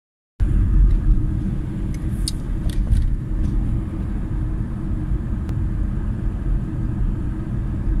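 Steady low rumble of a car driving along a road, heard from inside the cabin: engine and tyre noise, with a few light clicks about two to three seconds in.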